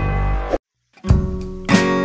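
Background music. One track with a strong bass and beat cuts off about a third of the way in, there is a brief moment of silence, and then a new piece of guitar music begins with strummed chords.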